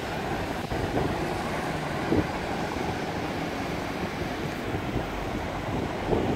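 Steady city street traffic noise, a low rumble of passing cars, with wind buffeting the microphone.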